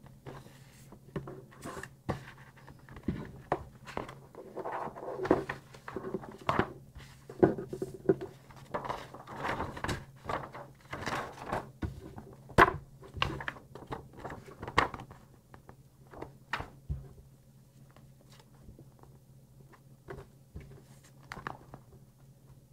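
Packaging being handled during an unboxing: a run of rustles, clicks and light knocks, busiest early on and thinning out near the end, over a steady low hum.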